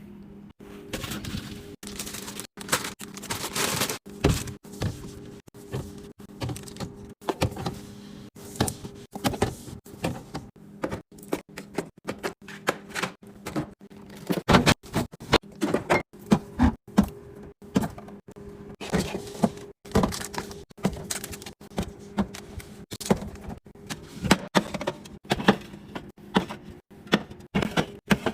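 Refrigerator restocking: containers and food packages handled and set down, giving a run of quick clicks, knocks and clatter over a steady low hum.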